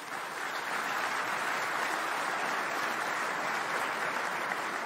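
Audience applauding: many hands clapping together in a dense, steady patter that swells in at the start and begins to fade near the end.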